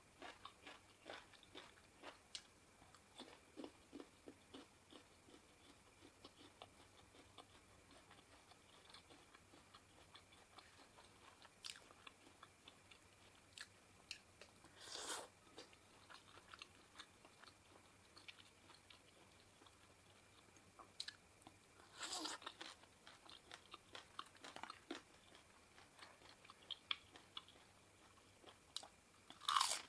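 A person chewing and crunching mouthfuls of spicy seafood papaya salad, many small wet clicks with a few louder crunches about halfway, again a little later and just before the end.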